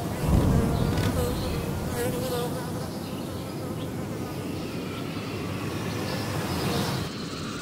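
A steady buzzing hum with a faint wavering tone over a low rumble, with a low thump about a third of a second in; the high hiss drops away near the end.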